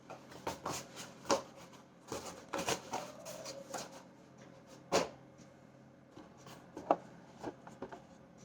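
Irregular clicks, taps and rustles of small objects being handled, with three sharper clicks standing out, about a second in, near the middle and about seven seconds in. There is no steady motor sound of a trimmer running.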